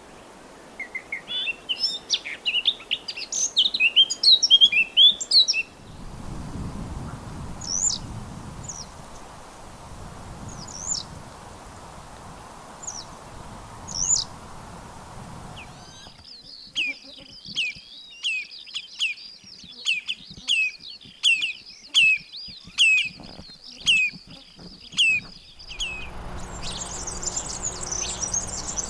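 Wild birdsong from several different birds in succession: a fast, varied twittering song, then sparse short high calls, then a song of evenly repeated notes over a steady high tone, ending in a high continuous buzzing trill.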